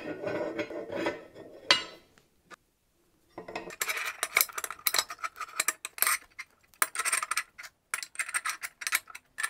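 Steel spur gears being slid onto steel shafts and fitted by hand in a steel gearbox housing: metal-on-metal clinking and clattering. A short pause comes about two seconds in, then a dense run of quick clicks and rattles.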